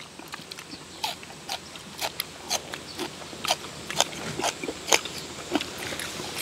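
People eating curry rice and green onion kimchi, chewing and smacking: a string of short, irregular mouth clicks, about two a second.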